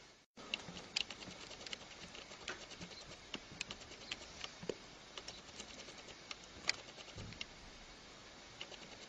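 Irregular small sharp clicks and ticks, a few a second, over a faint steady hiss, after a brief dropout just at the start.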